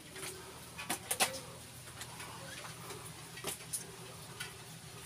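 A few sharp taps and clicks, about a second in and again around three and a half seconds in, over a faint steady background hum.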